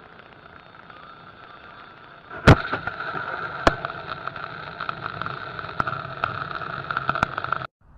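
Dashcam audio from a car driving in heavy rain: steady rain and road noise, broken by one sharp, very loud crack about two and a half seconds in. After the crack the rain noise is louder, with a few smaller sharp ticks, and the sound cuts off shortly before the end.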